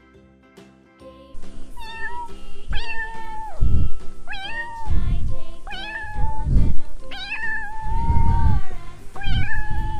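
A cat meowing repeatedly in high-pitched calls, about six or seven of them, starting about a second in. One call near the end is drawn out longer than the rest. Low thuds come between the calls.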